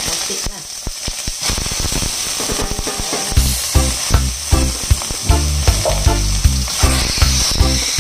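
Sliced onions sizzling in hot oil in a wok as they are sautéed: a steady frying hiss. About three seconds in, a low, regular beat about twice a second joins in.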